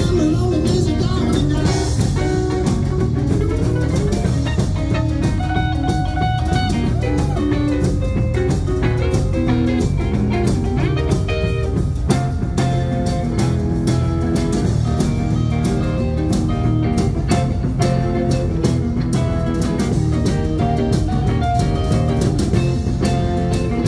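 A rockabilly band playing live in an instrumental passage, with no singing: electric guitar lines over a rhythm guitar, electric bass and drum kit, with a few bent notes in the guitar.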